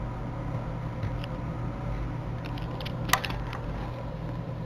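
Steady low hum of indoor room tone, with a few small clicks and one sharper click about three seconds in.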